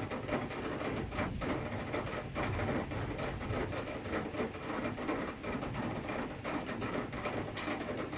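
Heavy rain falling: a steady rushing hiss with many sharp taps of drops hitting hard surfaces close by.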